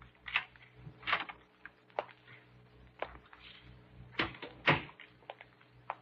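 Radio-drama sound effect of a door being worked and opened: a series of sharp, irregularly spaced clicks and knocks, the loudest two about four and a half seconds in.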